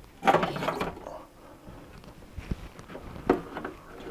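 Thick electrical cable being pushed and tucked into a sheet-metal wireway: a scraping rustle shortly after the start, then a few scattered clicks and knocks.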